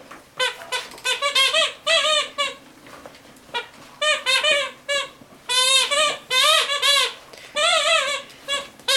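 Rubber gnome squeaky toy squeaking over and over as it is squeezed or chewed, in quick runs of short squeaks with brief pauses between the runs.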